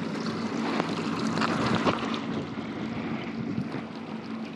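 A boat's motor running at low idle, with water sloshing against the hull and wind on the microphone.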